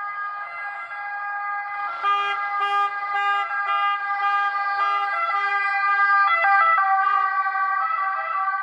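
Background music: sustained synth chords that start abruptly, with a pulsing line of short repeated notes coming in about two seconds in.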